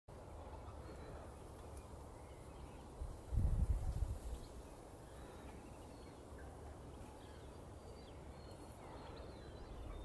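Outdoor ambience of a steady low wind rumble on the microphone, with a stronger gust about three seconds in, and a few faint, high bird chirps.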